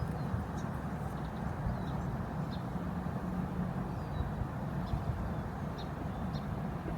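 Small birds chirping: short, high chirps scattered every second or so over a steady low rumble.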